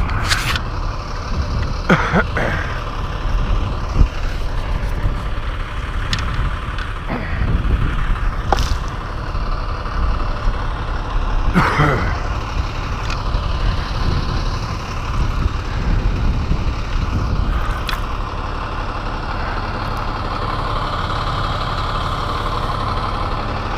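An engine running steadily at idle, with a few short knocks or clicks over it.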